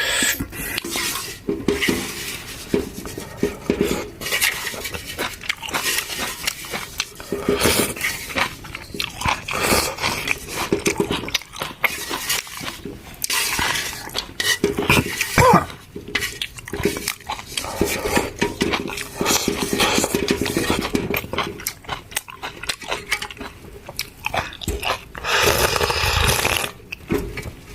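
Eating from a cooking pot: utensils repeatedly clinking and scraping against the pot at an irregular pace, with some chewing.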